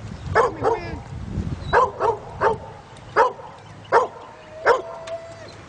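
Dog barking repeatedly, about eight short barks at uneven spacing, with a thin held whine between the last barks.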